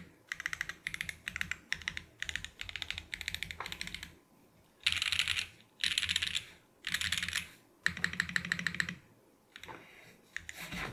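Geon F1-8x TKL mechanical keyboard with lubed Everglide Tourmaline Blue linear switches, ABS Cherry-profile keycaps, a half aluminium plate and no foam, being typed on fast in bursts of rapid keystrokes separated by short pauses. The bursts in the middle are the loudest, and the last ones are fainter.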